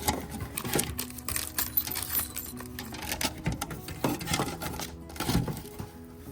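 Irregular clicks, knocks and clatter of hard parts being handled and fitted together, loudest about five seconds in, over quiet background music.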